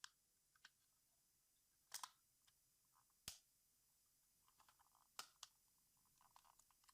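Plastic tape measure case being handled and fitted back together: a few separate sharp clicks with small ticks and light rattles between them.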